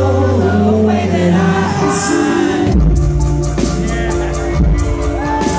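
Live band playing through a concert PA, heard from the audience: held bass and keyboard chords, with the bass dropping lower and drums coming in about three seconds in.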